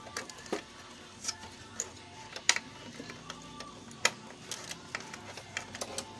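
Plastic and metal parts of an HP Deskjet 2510 printer's carriage rail assembly clicking and clattering irregularly as it is worked free by hand, with two sharper knocks about two and a half and four seconds in.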